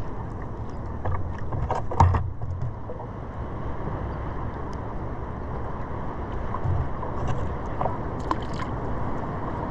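Seawater sloshing and splashing around a surfboard, with small clicks and splashes and one sharper hit about two seconds in.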